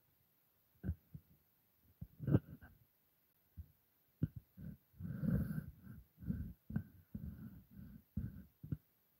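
A cat crunching dry kibble picked up off a wooden tabletop: irregular crunches and clicks with short gaps, and a longer, louder stretch of chewing about five seconds in.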